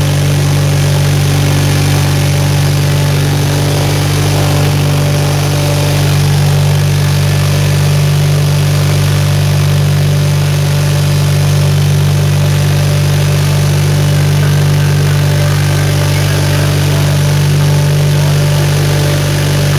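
The 520-SC Snow Chucker's engine running at a steady speed as the machine creeps along, heard from inside its cab. It is a loud, even drone with no change in pitch.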